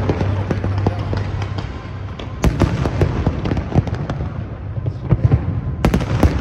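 Aerial fireworks bursting in quick succession: sharp bangs and crackles over a steady low rumble, with denser clusters of reports about halfway through and near the end.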